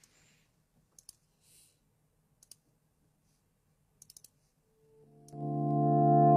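A handful of faint, separate clicks, then a song's backing track fades in about five seconds in and quickly rises to full level with sustained chords: the accompaniment for the karaoke song starting.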